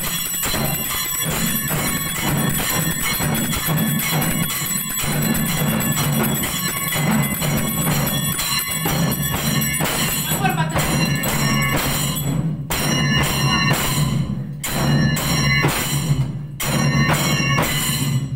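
Temple bells ringing continuously over a low, pulsing drumbeat: the music that accompanies aarti, the waving of the lamp in Hindu worship.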